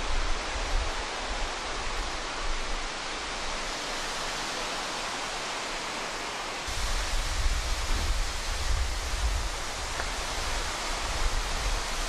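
Steady rush of the Tsugane-otoshi waterfall, an even hiss of falling water. A low rumble underneath drops away for a few seconds in the middle, then returns.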